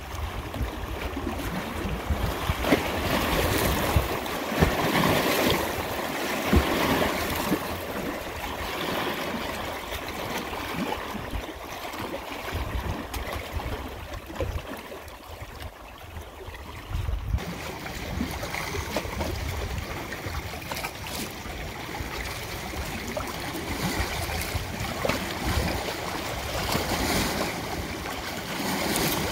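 Running water: a continuous rushing that swells and ebbs, changing abruptly in texture about seventeen seconds in.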